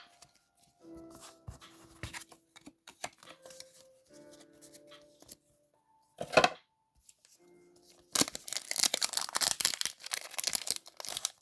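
Foil Pokémon booster pack wrapper being torn open and crinkled in the hands, a dense crackling that starts about eight seconds in, after quieter handling of cards and packaging with one short loud rustle about six seconds in.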